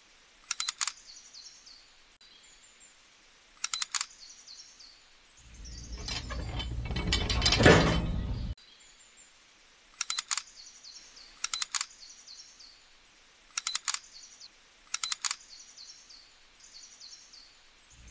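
Small hard parts of a toy plow hitch clicking in short clusters, six times, as the pin is fitted. Faint bird chirps run underneath, and a louder rushing noise swells from about five seconds in and cuts off suddenly near the middle.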